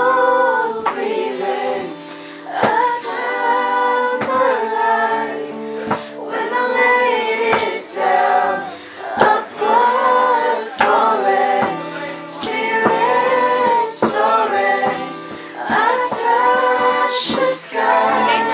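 A group singing together, mostly women's voices, with an acoustic guitar strummed along in a steady beat.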